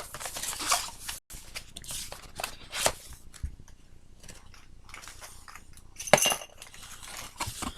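A poker set of chips and playing cards being unpacked by hand, with its packaging crackling and the chips clicking together in irregular bursts. The loudest burst comes about six seconds in.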